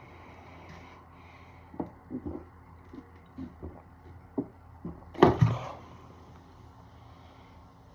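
A person chugging a 2-litre bottle of cola: a string of short gulping sounds, then a louder half-second burst of sound about five seconds in.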